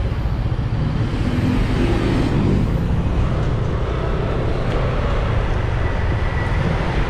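Riding a motor scooter in traffic: steady engine and road noise with a heavy low rumble, and an engine tone rising briefly about two seconds in.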